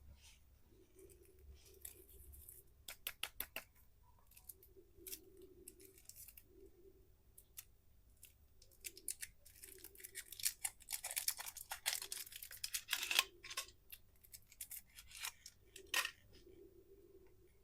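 Plastic candy wrappers crinkling and crackling as sweets are handled and unwrapped, in clusters of sharp crackles that are densest for a few seconds past the middle.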